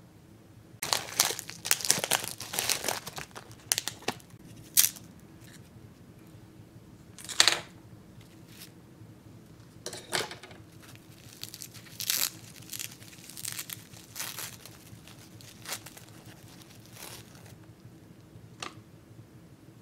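Thin paper wrapper crinkling and tearing as it is unwrapped and crumpled by hand: a dense run of crackling at first, then short separate crinkles every second or two.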